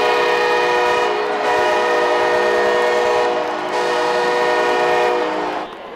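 Stadium horn sounding a loud multi-note chord like a train horn, in three long blasts of about two seconds each, over crowd noise, as a touchdown celebration signal.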